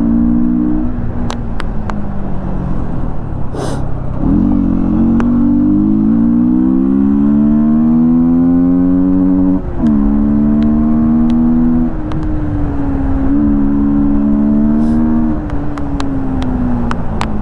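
Yamaha MT-15's 155 cc single-cylinder engine with an open air filter, ridden hard: the engine note settles, then climbs steadily for several seconds, drops sharply at an upshift about ten seconds in, holds, and falls away as the throttle closes near the end.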